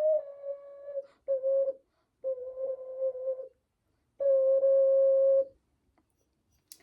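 Luna Celta ocarina sounding its low C, the same held note blown four times with short breaks, the second one short, as the player works the fingers down to cover the lowest holes.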